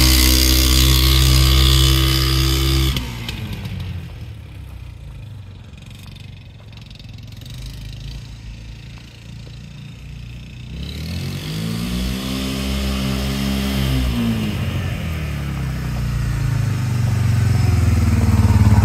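Honda Fourtrax ATV's single-cylinder four-stroke engine running at high revs, then dropping off suddenly about three seconds in to a low, quiet run. Later it revs up and back down once, then engine speed and loudness climb again toward the end.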